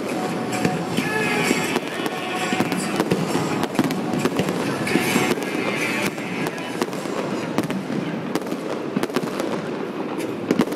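Aerial fireworks shells bursting in quick succession: a dense, irregular run of bangs and crackles.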